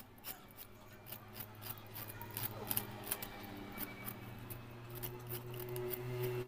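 A knife cutting and scraping the husk off a fresh bamboo shoot in short, repeated strokes, over a low steady hum.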